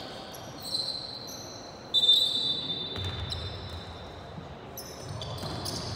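Basketball game sounds: sneakers squeaking on the court in several short, high squeals, with a basketball bouncing.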